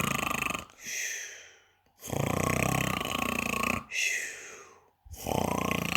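A person imitating loud, exaggerated snoring: three long rasping snores, each followed by a softer breathy exhale.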